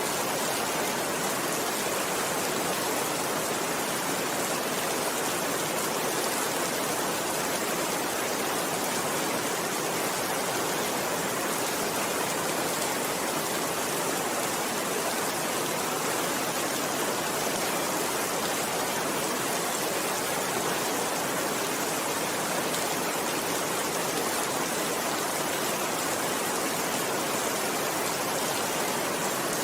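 Steady, even rainfall: a continuous hiss of rain with no thunder and no single loud drops standing out.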